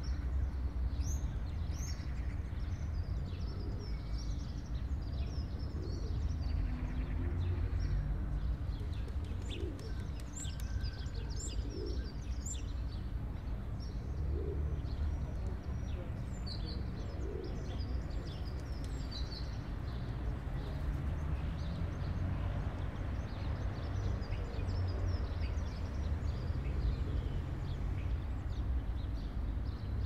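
Small birds chirping and twittering, busiest through the first two-thirds, over a steady low rumble of the surrounding city.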